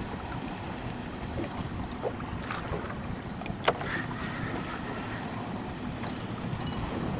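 Fishing boat's engine running at low speed under steady wind and water noise, with a sharp click about three and a half seconds in.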